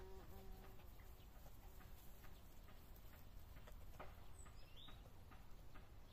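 Near silence: faint outdoor ambience with a low hum and a few soft ticks, and one brief high bird chirp about four and a half seconds in.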